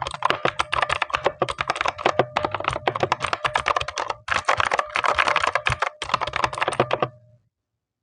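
Gamen Titan 2 mechanical keyboard with clicky blue switches being typed on fast: a dense run of sharp key clicks that stops about seven seconds in.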